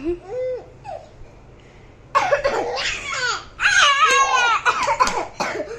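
A young child laughing hard in loud, high-pitched bursts from about two seconds in, after a short soft vocal sound at the start.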